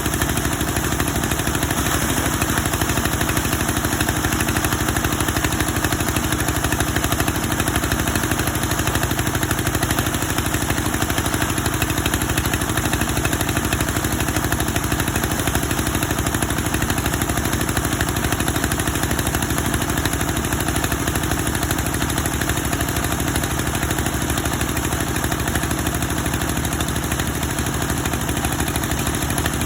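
Wood veneer machine running steadily, a continuous mechanical drone with a rapid, even pulse.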